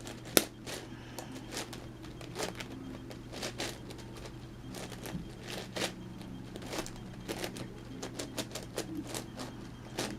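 Plastic clicking and clacking of an 11x11x11 Rubik's cube being turned by hand, layers snapping round in irregular runs of clicks.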